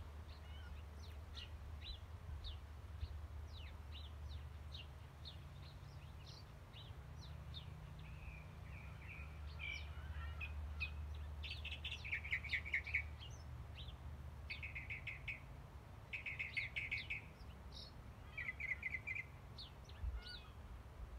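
Wild birds chirping: many short high chirps, with several brief rapid trills in the second half. A low steady rumble lies underneath.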